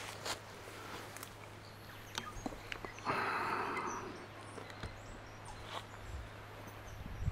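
Footsteps on a bush trail, with scattered light crunches and clicks. About three seconds in, a louder rough noise lasts about a second.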